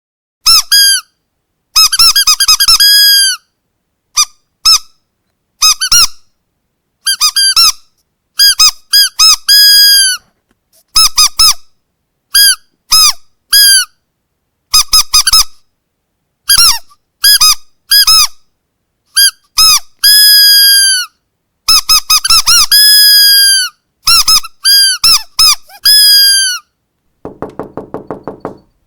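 Squeaky dog toy squeezed over and over: high-pitched squeaks in clusters of a few at a time with short silent pauses between, some squeaks dipping in pitch at the end. Near the end a quieter, lower run of rapid knocking begins.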